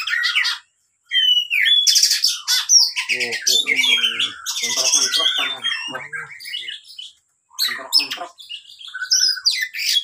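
Oriental magpie-robin (kacer) singing a loud, varied song of whistles and buzzy, scratchy notes, broken by two short pauses, about a second in and around seven seconds in.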